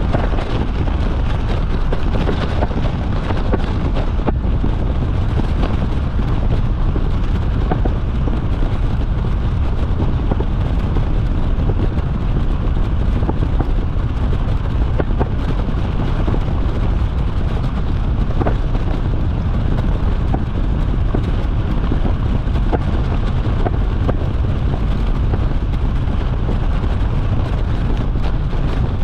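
Steady wind rushing and buffeting on the microphone of a camera rigged on a flying canopy's lines, loud and heaviest in the low end.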